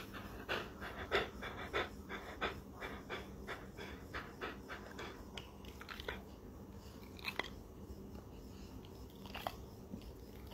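A Rottweiler panting softly with its mouth open, about three quick breaths a second, easing off about halfway through to a few faint mouth sounds.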